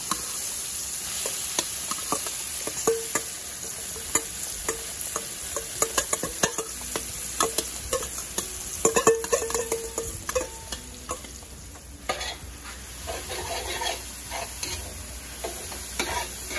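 Flaked saltfish hitting hot oil in a large metal pot and sizzling, while a metal spoon scrapes and taps it out of a stainless steel bowl, with many sharp clicks and brief metallic squeals. In the last few seconds the clatter gives way to quieter stirring in the sizzling pan.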